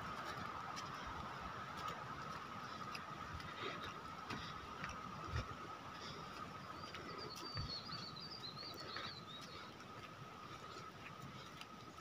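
Footsteps on a dirt trail: scattered light ticks and a few soft thumps. A steady high thin tone runs beneath, and a bird's quick warbling chirps come in from about seven to nine seconds in.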